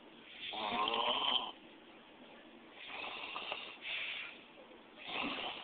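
A sleeping man snoring loudly. The loudest snore comes about half a second in, and softer snoring breaths follow around three and four seconds in and again near the end.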